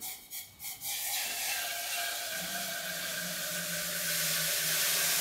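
Liquid nitrogen being poured into a container, hissing as it boils off against the warm vessel. A few short knocks come in the first second, then a steady hiss that grows a little louder after about four seconds, with a low steady hum underneath.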